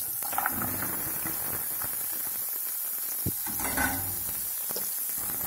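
Chopped onions, garlic and ginger frying in hot oil in a pan: a steady sizzle, with a single light knock about three seconds in.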